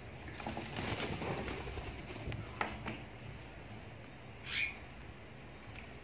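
Lutino cockatiels moving about on a wooden table: a brief rustle of wing flapping in the first second or so, two sharp taps about two and a half seconds in, and one short chirp a little past the middle.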